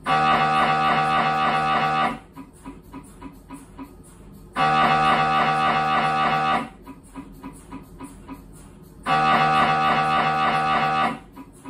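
Siemens Symphony Maestro Class 1.5 T MRI scanner running a scan sequence: three loud buzzing tones of about two seconds each, with quieter rhythmic knocking, about three a second, in the gaps between them.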